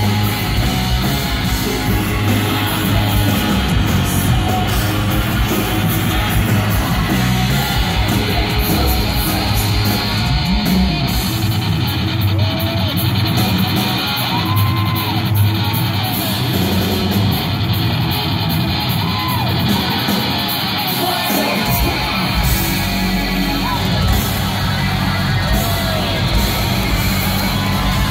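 Live rock band playing loud through a concert sound system, led by heavy distorted electric guitar over drums and bass. Midway the deep bass drops out for about ten seconds, leaving the guitar with sliding, arching high notes, then the full band comes back in.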